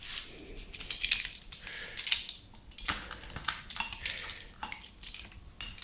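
Irregular metallic clicks and clinks of a hand tool and metal pump parts being handled as a puller is set up to draw out the pump's stuck shaft seal.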